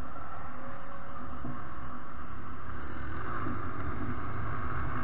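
Motorcycle engine running steadily while riding at speed, with wind noise over the microphone.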